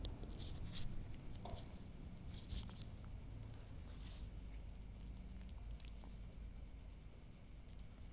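A kitten eating cooked rice close to the microphone: faint, irregular clicks and smacks of chewing and licking, most of them in the first three seconds, over a steady high-pitched whine.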